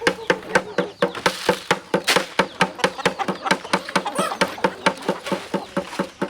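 A flock of free-range chickens feeding, with a quick, uneven run of short sharp clicks of pecking.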